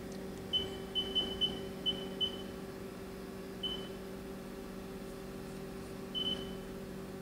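Haas CNC lathe control keypad beeping as keys are pressed: eight short high beeps, six in a quick run in the first two seconds or so, then one near four seconds and one about six seconds in. Under them runs the steady hum of the lathe.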